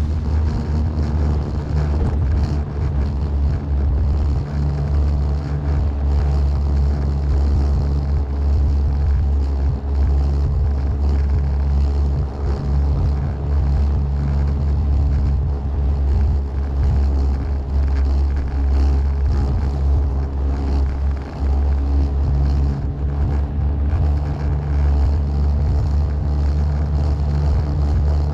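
Small fishing boat's engine running steadily under way, a constant low drone.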